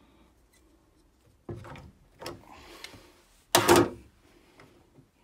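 Handling noises from boiler parts being worked on by hand: a short clunk about a second and a half in, a couple of clicks, then a louder brief clatter about three and a half seconds in.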